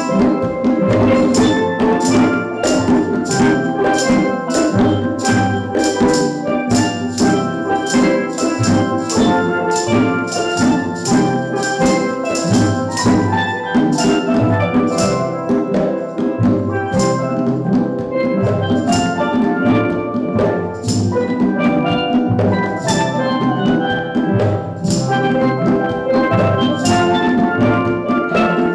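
Steel drum band playing a tune, with drums keeping a steady beat under the pans' ringing melody.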